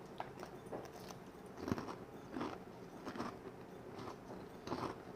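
A person chewing crunchy potato chips close to the microphone: about eight short, irregular crunches.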